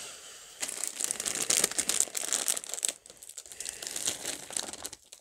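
Clear plastic crouton packet crinkling as it is handled and worked open, in two spells with a short break about three seconds in.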